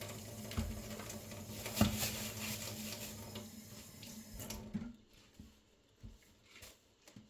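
Water running from a kitchen tap, shut off about five seconds in, followed by a few light knocks.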